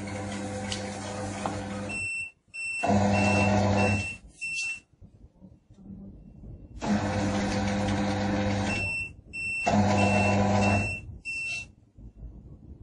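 QMAX NF-1 needle detector: its conveyor runs with a steady hum, then a string of short high beeps goes off as the needle in the test card is detected, and the hum cuts out. This happens twice, about seven seconds apart.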